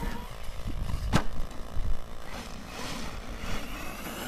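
Brushless-powered Arrma Nero RC monster truck running on loose gravel: a faint motor whine that rises and falls, with a single sharp knock about a second in. Low wind rumble on the microphone runs underneath.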